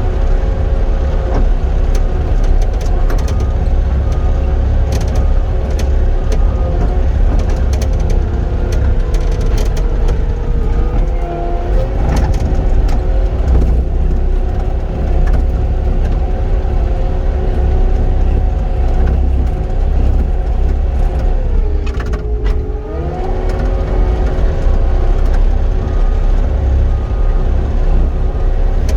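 Caterpillar 259D compact track loader's diesel engine running steadily at working speed, with light clicks and rattles. About three-quarters of the way through the engine note briefly drops in pitch and comes back up.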